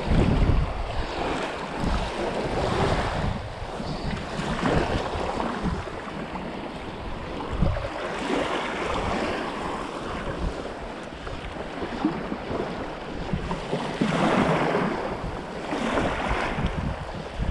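Small surf washing onto the beach, swelling and fading every few seconds, with wind buffeting the microphone.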